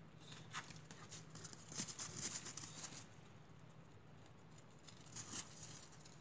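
Crunching steps and scuffling on icy, crusted snow, coming in short clusters, densest about two seconds in and again near the end.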